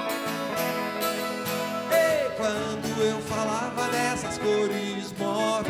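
Live band playing a Brazilian pop-rock song: strummed acoustic guitar with electric guitar, keyboards and drums, and a male voice singing a melody that comes in about two seconds in.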